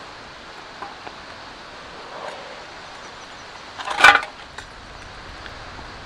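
Handling of aluminium mess tins and food pouches: small ticks and a soft rustle, then a short burst of clicking and rattling about four seconds in, over a steady outdoor hiss.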